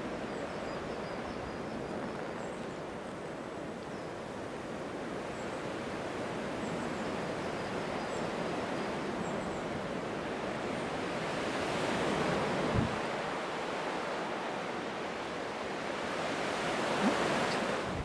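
Steady outdoor rushing noise, swelling in the second half, with two short knocks, one about two-thirds of the way in and one near the end.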